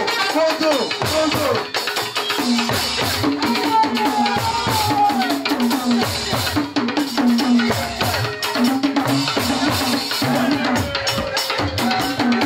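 Yoruba dundun talking drums beaten with curved sticks, with quick runs of short strokes that bend up and down in pitch over a steady drum beat.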